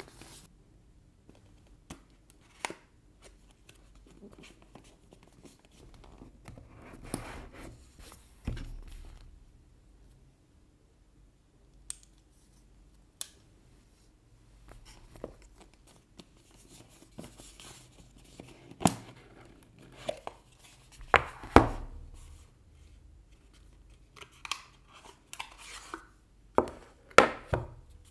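Cardboard retail box of Samsung Galaxy Buds2 earbuds being handled and opened by hand, with scattered taps and clicks of cardboard and a short papery rustle about seven seconds in. In the last ten seconds come a run of sharper clicks and scrapes as the lid comes off and the inner paper sleeve is drawn out.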